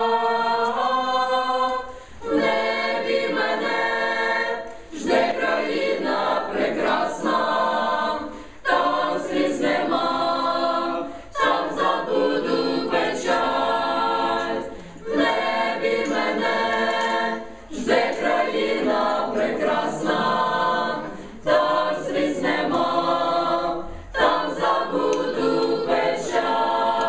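Church youth choir of women and men singing a cappella, in phrases a few seconds long with brief breaks between them.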